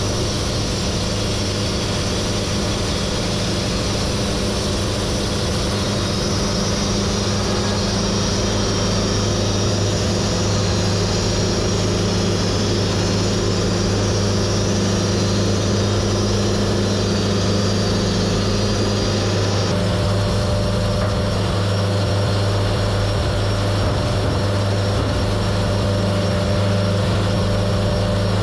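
Wood-Mizer portable band sawmill running steadily at working speed. About 20 seconds in, the higher part of the sound shifts.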